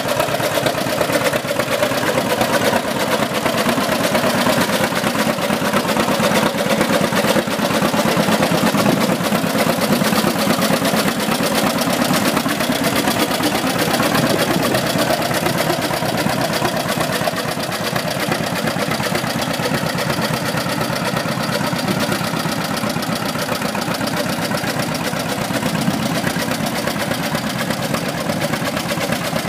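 John Deere styled AR tractor's two-cylinder engine running steadily at low speed, with a fine, even beat of firing pulses throughout.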